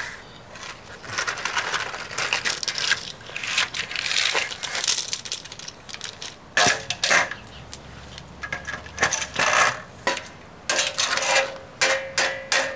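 Sheet-metal casing parts being stepped on and bent by foot: a run of metal clanks and clatters. There are a few ringing metallic clinks near the end.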